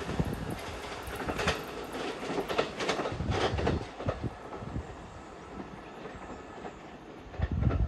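JR East E129-series electric train running away along the track, its wheels clacking over the rail joints, the sound fading as it goes. A short low thump near the end.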